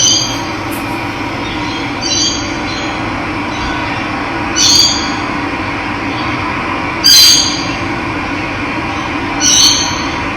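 Running water with a steady rush, over which a bird repeats a short, high call five times, about every two and a half seconds.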